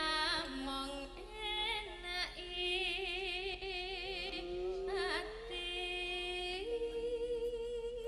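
Javanese pesinden (female gamelan singer) singing a slow, ornamented line through a microphone, holding long notes with a wide, wavering vibrato and sliding up between pitches.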